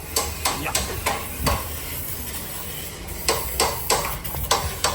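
Sharp metallic clanks and taps from work on a car's exhaust system, in two irregular runs of about five strikes each, with a pause of about a second and a half between them.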